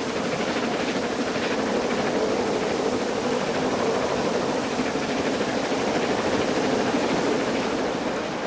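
Steady rumble of a train running along the track, as heard from inside a carriage.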